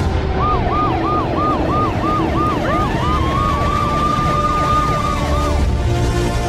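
Emergency sirens used as an intro sound effect: one siren going up and down quickly, about three times a second, and a second siren sweeping up about two and a half seconds in and holding its pitch, over a deep rumble. The sirens stop shortly before the end as steady musical tones come in.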